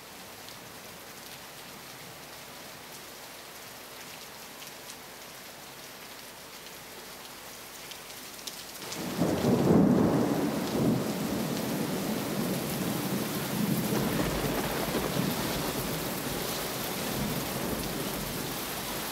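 Recorded rain and thunder played as a sound effect: steady rain hiss, then thunder rumbling in about nine seconds in and the rain growing louder after it.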